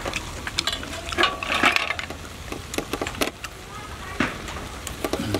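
Metal tongs and a thin stick clicking and scraping against grilled snail shells on a wire grill rack as the meat is picked out, a string of sharp, irregular clicks.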